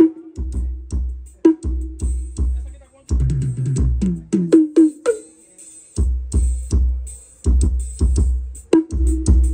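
Electronic dance music with a drum-machine beat and deep bass kicks, played loud through a custom Bob-style car-audio speaker box with subwoofer and midrange drivers, run from a Stetsom 1003 mixer-player. The deep bass drops out for about two seconds midway, then comes back.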